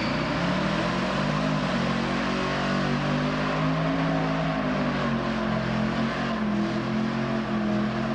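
1996 Ford Thunderbird doing a burnout: the engine is held at high, fairly steady revs while the rear tires spin against the pavement with a continuous hiss.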